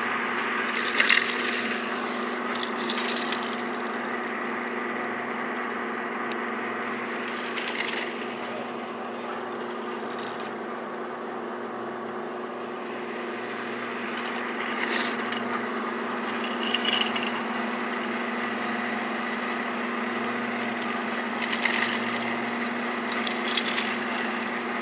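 A steady motor hum with several even tones throughout, with short scraping sounds every few seconds.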